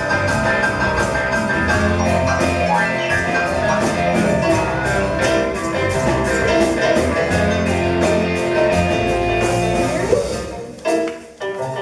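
Live rock band playing an instrumental passage with a steady drum beat, electric guitar and stage keyboard. Near the end the band suddenly drops out, then comes back with a few short stabs.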